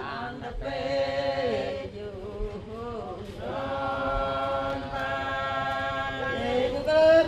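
Traditional chant sung by men's voices, with long held notes that slide between pitches.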